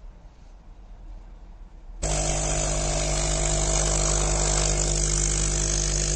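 Hailea ACO-009 electromagnetic air pump switching on suddenly about two seconds in, after a quiet stretch, then running steadily with a loud buzzing hum and a rush of air.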